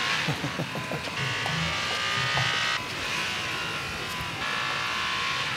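Audi RS 5's 4.2-litre FSI V8 engine running at high revs, a steady engine note that changes in steps about every second and a half.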